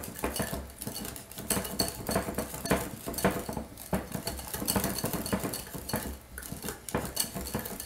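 Wire whisk beating a thick cream cheese and mayonnaise mixture in a glass bowl, its wires tapping and scraping against the glass in quick, irregular clicks.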